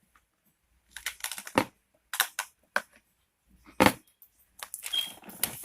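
Hands squishing and stretching sticky homemade slime, giving a scattered run of short wet clicks and pops in a few clusters.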